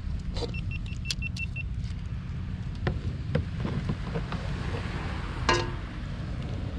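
Metal pot and utensils clinking and knocking as boiled octopus is lifted out of the pot, over a steady low rumble. A quick run of short high pings comes about a second in, and the loudest knock comes about five and a half seconds in.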